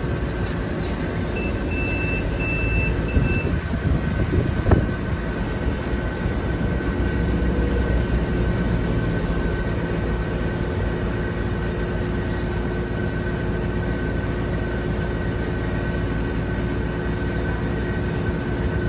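Kubota combine harvester running steadily, its engine and threshing machinery making a constant drone with a steady whine. A run of short high electronic beeps sounds about one and a half seconds in, and a single sharp knock about five seconds in.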